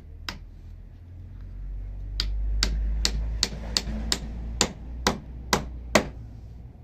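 A series of about a dozen sharp taps or knocks, coming about two to three a second, over a low rumble.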